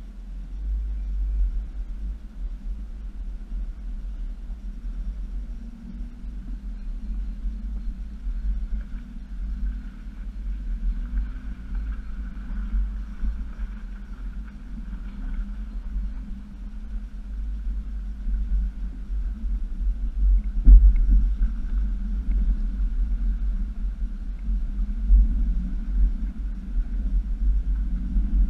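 2007 Jeep Wrangler Unlimited's 3.8-litre V6 and drivetrain running at crawling speed through a creek bed, heard as a steady deep rumble, with one sharp clunk about twenty seconds in.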